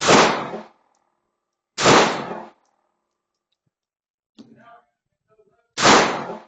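Three airsoft gun shots about two seconds apart, each a sharp crack with a short fading tail, with a faint clatter between the second and third.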